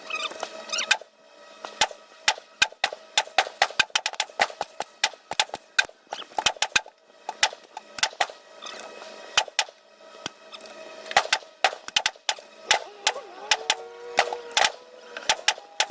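Rapid, irregular .22 rimfire gunshots, at times several a second, with short pauses between strings of shots.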